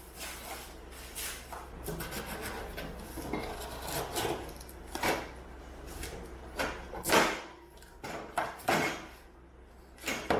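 Packaging and parts of a boxed plastic shelf being handled during unpacking: irregular rubbing and scraping with scattered knocks and clatters, the loudest about two-thirds of the way in.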